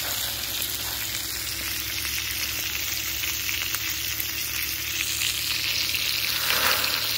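Burgers, hot dogs, sausages and onions sizzling over charcoal on a cast-iron Lodge Sportsman grill and in a skillet of hot grease: a steady hiss with small crackles, briefly louder near the end.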